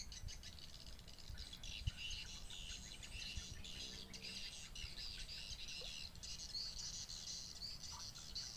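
Small birds chirping and twittering continuously in a dense chorus, over a low rumble.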